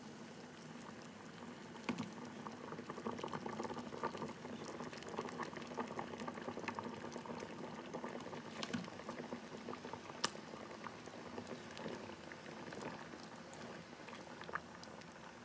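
Pot of sinigang broth at a rolling boil, bubbling steadily. A few sharp splashes and clicks, the loudest about two seconds and ten seconds in, as pieces of fish are dropped into it.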